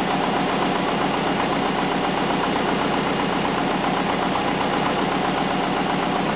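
Twin-turbocharged Subaru EJ20 flat-four engine idling steadily with the bonnet open.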